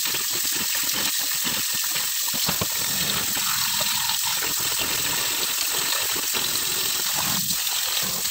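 Kitchen tap running steadily into a bowl of raw chicken pieces in a stainless-steel sink as they are rinsed by hand, with small splashes and knocks of the pieces and bowl.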